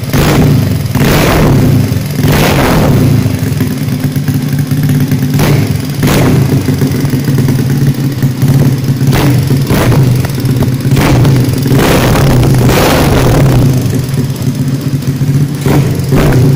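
Bored-up Yamaha Jupiter's single-cylinder four-stroke engine running through a BRS aftermarket exhaust with a stainless header and an RCB-style silencer. It idles steadily and is blipped with the throttle again and again, about every one to three seconds.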